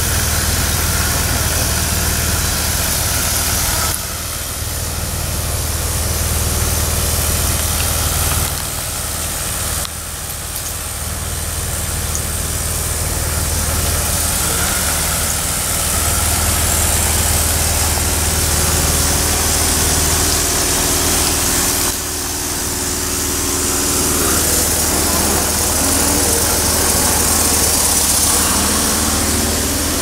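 An engine running steadily, a low even hum under a constant hiss. The sound shifts abruptly a few times.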